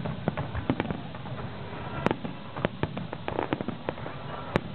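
Aerial firework shells bursting in quick, irregular succession, several sharp bangs a second, with a patch of denser crackling about three and a half seconds in.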